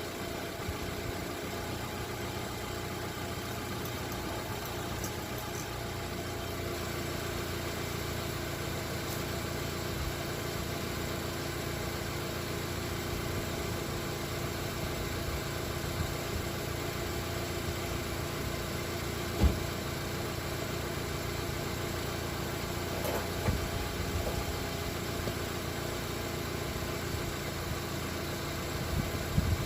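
Car engine idling steadily, with a single sharp click about two-thirds of the way through.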